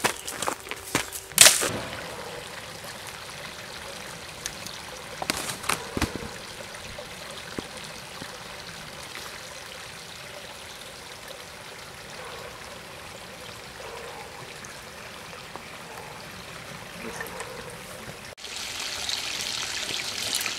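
Shallow creek water trickling over rocks, a steady rushing hiss. A few sharp knocks come in the first few seconds, the loudest about a second and a half in, and the flow turns louder and brighter for the last two seconds.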